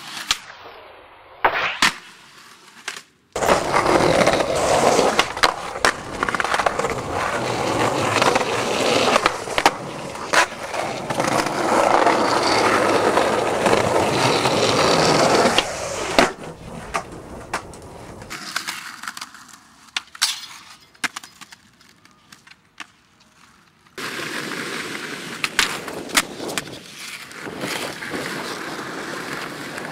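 Skateboard wheels rolling on concrete, with sharp clacks of the board popping and landing, in several separate runs that start and stop abruptly.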